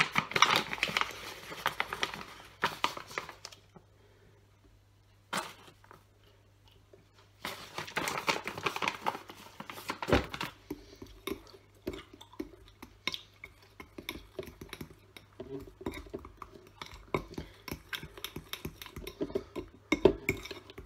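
A paper bag of powdered sweetener crinkling as it is shaken over a bowl and then folded shut, with a quiet pause between. After that, a fork stirs a thick mixture in a glass bowl, making rapid small clicks and scrapes against the glass.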